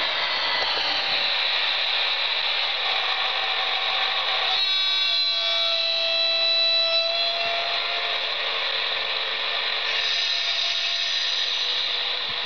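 Sound decoder in a Roco HO-scale model of a Belgian HLE 20 electric locomotive playing its electric-loco sounds through the model's small speaker. A steady hissing, like blowers, is joined about four and a half seconds in by several steady whining tones that fade and return near the end, as the model comes into view and stops.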